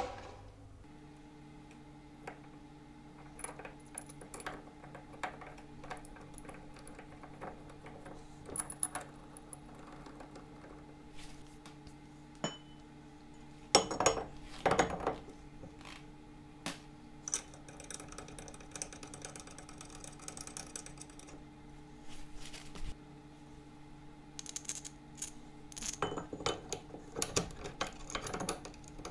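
Metal clinks, taps and clanks of brake parts and bolts being handled during a test fit of a big brake kit on a car's front hub. There is a louder clatter about 14 seconds in and a busier run of clinks near the end, over a faint steady hum.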